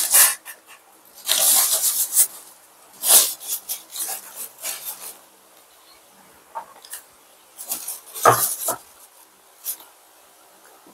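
Tissue paper being crumpled and rustled in the hands, with light knocks of a glass and ceramic plate on a countertop; a sharper knock comes about eight seconds in.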